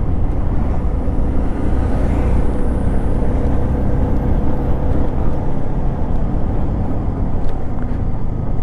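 Motorcycle riding over an uneven poured-concrete road, heard from the rider's own microphone: a steady, loud rumble of engine and road noise.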